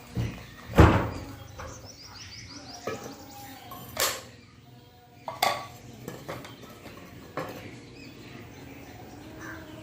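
A spoon clinking against a glass as water is measured out spoonful by spoonful: several sharp clinks with a short ring, the loudest about a second in.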